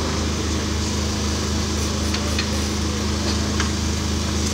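Steady low mechanical hum of a running motor, with a few faint light ticks in the middle.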